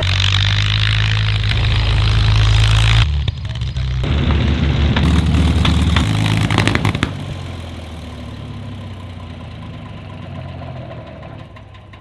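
A loud aircraft pass, a deep engine drone under a rush of noise, cuts off about three seconds in. It is followed by the Packard Merlin V-12 of a P-51 Mustang running loudly as the fighter taxis, which drops to a quieter steady idle about seven seconds in.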